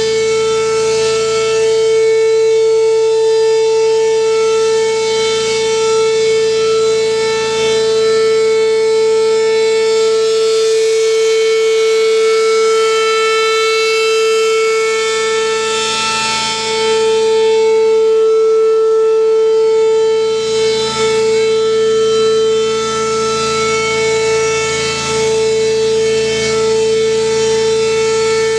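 Rotating mechanical siren sounding a steady tone held at one pitch while its horn slowly turns. The sound grows brighter about halfway through, as the horn swings toward the listener.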